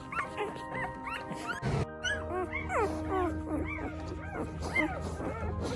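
A litter of English Cream Golden Retriever puppies whining and yipping: many short, overlapping, rising-and-falling cries over background music.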